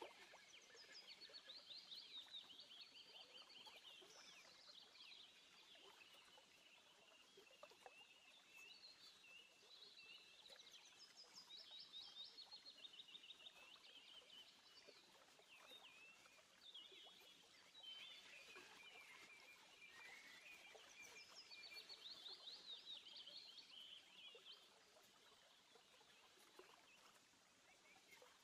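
Faint birdsong: several small birds chirping and trilling over and over, with short pauses between phrases.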